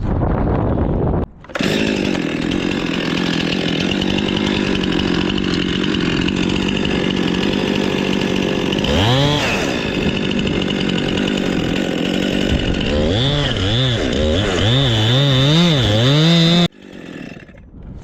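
Chainsaw running at high speed, cutting wood. About halfway through, its pitch dips and climbs back. Near the end it wavers up and down several times, then stops abruptly.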